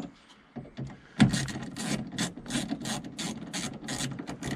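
Small hand ratchet driving the screws that hold a new window motor to the regulator: a sharp click about a second in, then the ratchet rasping in quick, even back-and-forth strokes, about three a second.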